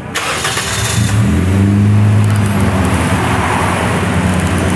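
Toyota Yaris engine running close under the open bonnet: a sudden rush of noise at the start, then a steady low hum that settles in about a second in.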